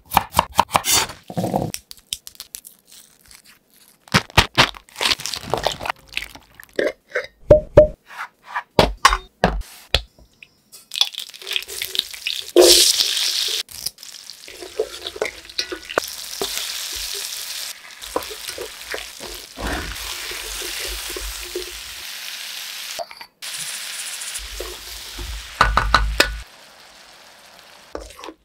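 Knife chopping coconut on a wooden cutting board in a quick run of sharp knocks. About a third of the way in, this gives way to hot oil sizzling steadily as small onions and dried red chillies fry in a pan and are stirred with a wooden spatula.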